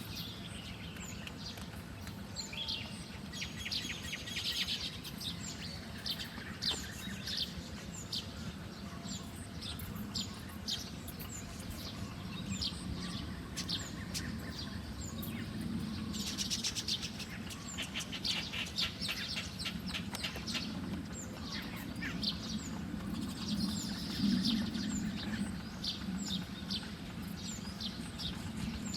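Small birds chirping in rapid runs of short, high notes, densest in several bursts, over a steady low hum.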